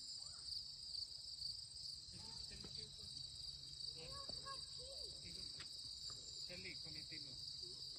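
Steady, high-pitched chorus of insects such as crickets, with faint voices in the background around the middle.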